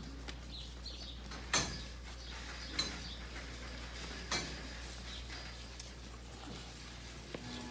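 A few short, sharp knocks, about a second or more apart, over a low steady hum.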